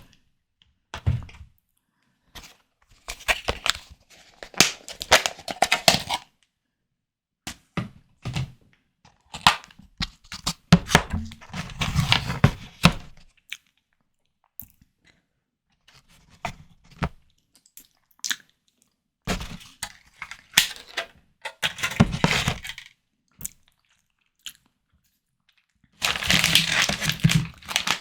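Close-miked eating sounds of prawn cocktail being chewed, wet and crackly, in bursts of one to three seconds with dead silence between them and a longer, denser burst near the end.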